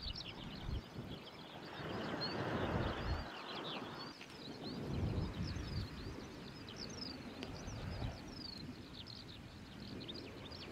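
Small birds singing, a fast, continuous stream of short high chirps and trills. Under it, a rushing noise swells twice, about two and five seconds in, like wind gusting on the microphone.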